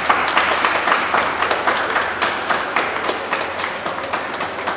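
A small group of people applauding, many separate hand claps close together, tailing off a little toward the end.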